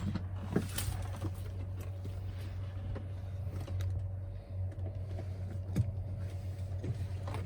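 Steady low electrical hum with a faint steady tone above it in a Bell 206 JetRanger cockpit, powered up but with the turbine not yet started, and a few light clicks scattered through it.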